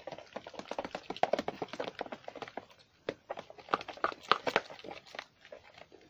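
Metal spoon beating a thin flour batter by hand in a plastic bowl: rapid, irregular clicks and knocks of the spoon against the bowl, pausing briefly about halfway through.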